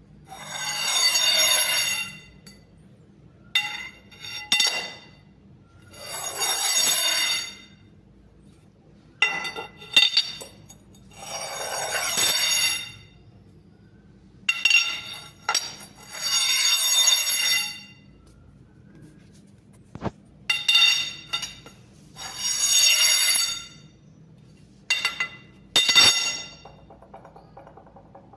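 Steel rods rolling and clinking together. About five smooth ringing passes of a second and a half to two seconds each alternate with short groups of sharp metallic knocks and clinks.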